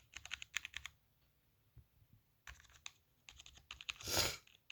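Computer keyboard being typed on: quick runs of key clicks in bursts, with a pause of about a second and a half after the first run. About four seconds in comes a single longer, louder burst of noise.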